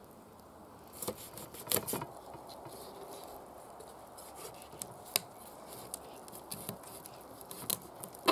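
Kitchen knife cutting through the neck of a large carp on a wooden board: scattered crunching and cracking as the blade goes through scales and bone, with the sharpest snaps about two seconds and five seconds in.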